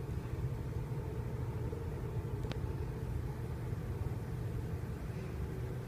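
Steady low outdoor rumble with a faint hum, and a single sharp click about two and a half seconds in.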